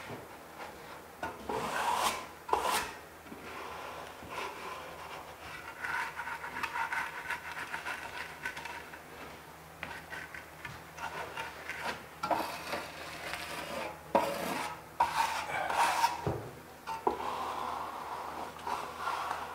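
Flat trowel scraping and rubbing over Kerdi waterproofing membrane on a wall in repeated strokes, with a few sharper scrapes, pressing the excess thinset mortar out from under the membrane.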